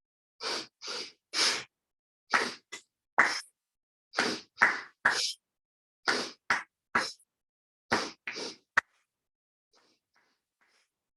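A person doing a three-part yoga breath close to the microphone: two sharp inhales (into the belly, then the chest) and a forceful exhale out. Five sets, roughly one every two seconds. The breathing stops about nine seconds in.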